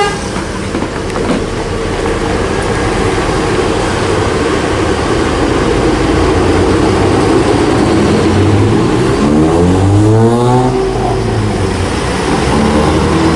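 Large coach bus engine running steadily, then revving with a rising pitch from about eight and a half seconds in as the bus accelerates.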